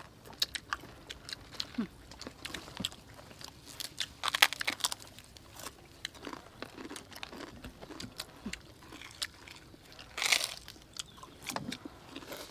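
Crisp food being bitten and chewed: crunchy baked chicken wings and prawn crackers, many sharp crunches, with louder bursts of crunching about four seconds in and about ten seconds in.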